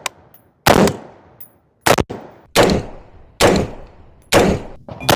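Toy gun firing gunshot sound effects: six single shots, about one a second, each a sharp crack with a short trailing echo.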